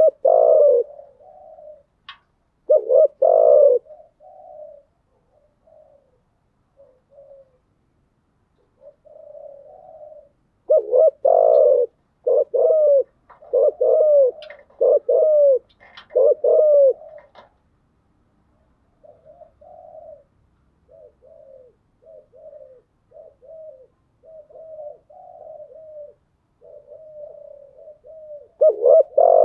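Spotted doves cooing: loud phrases of coo notes in bursts near the start, about three seconds in, and again from about eleven to seventeen seconds, with softer, shorter coos in between and through the last third. These are the calls used as a lure recording to draw in and excite male spotted doves.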